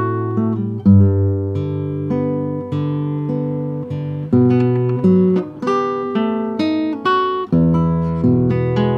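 1975 Matsuoka No30 classical guitar, solid spruce top with Indian rosewood back and sides, strung with Savarez carbon strings, played fingerstyle: a plucked melody over bass notes, with a new note struck every half second or so.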